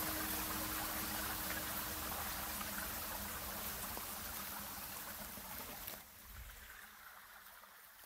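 Running water, an even rushing trickle, fading out steadily and dropping away sharply about six seconds in.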